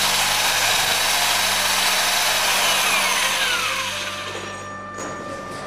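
Power drill spinning a stainless steel bore brush inside a soldering iron's heating-element bore, scrubbing out rust and buildup. The drill's whine falls in pitch as it slows, about three seconds in, and the noise fades away.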